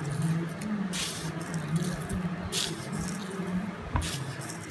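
Monosodium glutamate crystals poured onto a bowl of seasoned ground pork, heard as a few short hissing bursts of falling granules, over a steady low hum.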